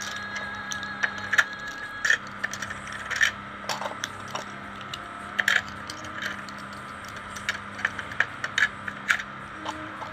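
Small hollow plastic toy fish being dropped and pressed into the holes of a toy fishing game's plastic pond, making irregular light plastic clicks and clacks.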